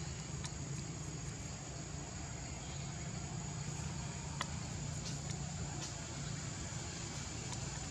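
Steady low mechanical hum, like an engine running, with a thin steady high whine above it and a few sharp clicks scattered through.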